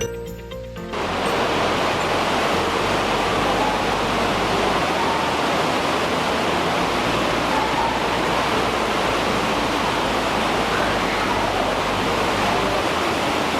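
Steady, loud rush of the Varone waterfall pouring through its narrow rock gorge. It starts about a second in, as background music cuts off.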